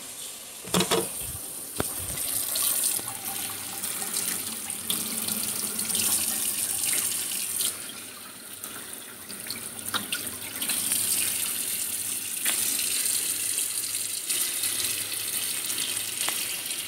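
Kitchen faucet running into a stainless steel sink, the stream splashing over diced vegetables in a plastic colander. A few sharp knocks come through the running water, the loudest about a second in.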